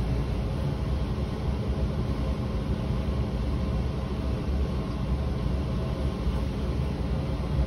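Steady low hum and hiss of a ventilation fan running, even and unchanging, with no distinct drips or knocks standing out.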